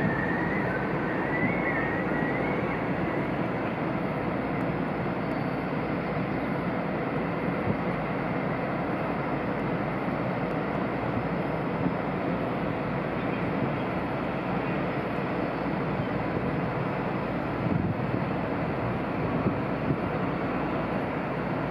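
Steady rumble and hiss of a large cruise ship's machinery as it slowly moves off, with a faint wavering whistle in the first two seconds.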